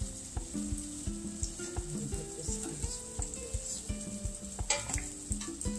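A banana patty sizzling as it fries in hot oil in a stainless steel sauté pan, a steady hiss, under background music with a steady beat.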